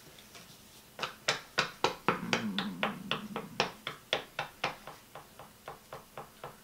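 Rhythmic sharp tapping at a table, about three taps a second, starting about a second in. The taps are loud for the first few seconds, then softer, with a brief low hum under them.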